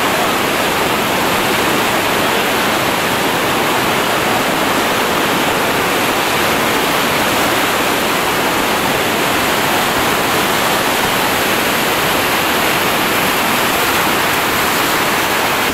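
Whitewater rapids rushing: a steady, loud rush of churning river water with no breaks.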